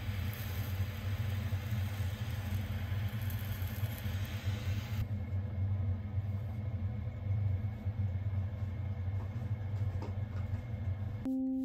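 Handheld kitchen butane torch burning with a steady hissing flame as it sears grated cheese, shut off about five seconds in. A steady low hum runs underneath throughout, and piano music begins right at the end.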